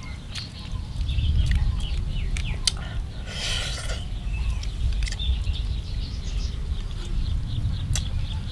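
Small birds chirping over a steady low rumble, with a few sharp clicks and a short rustling burst about three seconds in.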